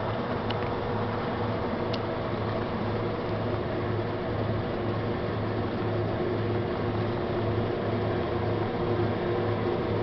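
Combine harvester running steadily: a constant machine drone with several steady held tones and a low pulse repeating about twice a second.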